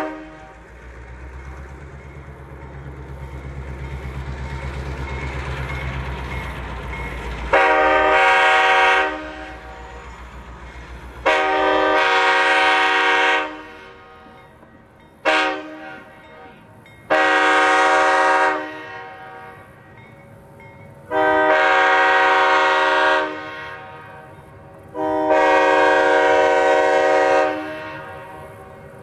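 Train air horn with several notes sounding together, blown in six blasts: long, long, short, long, the grade-crossing signal, then two more long blasts. A deep rumble runs under the first seven seconds before the horn starts.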